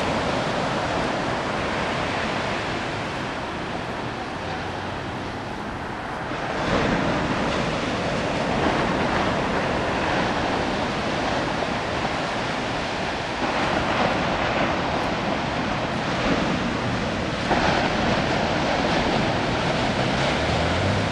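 Ocean surf: small waves breaking and washing up a sandy beach in a steady rush, with a louder break about a third of the way in.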